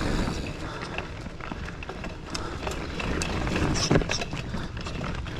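Giant Fathom mountain bike rolling over a dirt trail: a low rumble of tyres and wind, with the frame and drivetrain rattling and clicking over bumps, and one louder knock about four seconds in.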